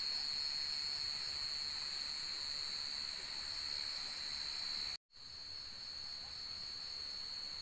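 Night chorus of forest insects: a steady, high-pitched, unbroken trill made of several layered pitches. It cuts out completely for a split second about five seconds in, then resumes.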